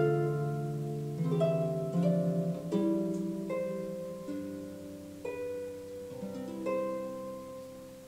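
Soothing harp music: plucked notes and chords ringing out one after another, the last one dying away near the end.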